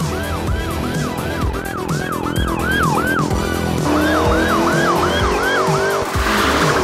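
Police siren in a fast yelp, its pitch sweeping up and down about three times a second, over synthwave music with a steady beat. The siren breaks off for about half a second a little past the middle, then resumes, and a short rushing noise comes near the end.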